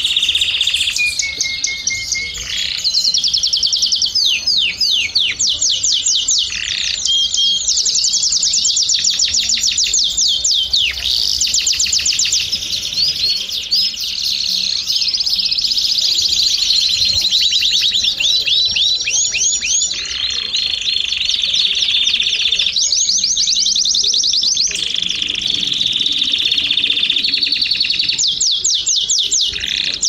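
Domestic canary (canário belga) singing a continuous song of fast trills, rapid runs of repeated notes that change to a new phrase every second or two with hardly a pause.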